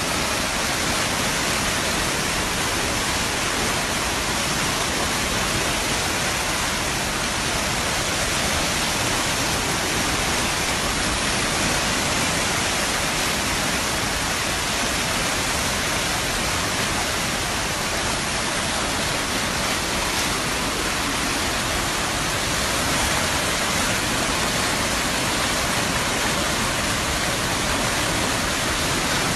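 Swollen, muddy river in flood rushing past in a steady, unbroken rush of water.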